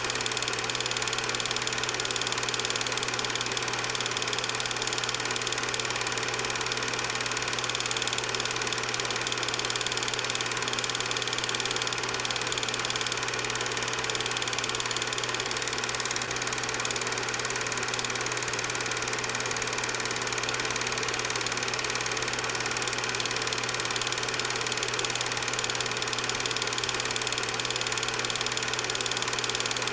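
8mm film projector running at a steady speed: an even mechanical whir over a constant hum that does not change at all.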